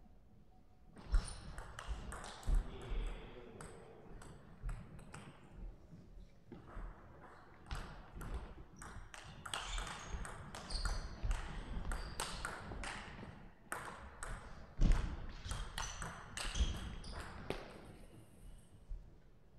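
Table tennis ball being hit back and forth with rubber paddles and bouncing on the table, giving a long run of sharp ticks over two rallies with short pauses between points.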